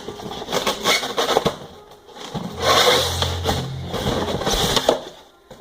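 Crackling and rustling of packaging being handled during unboxing, with small knocks and clicks.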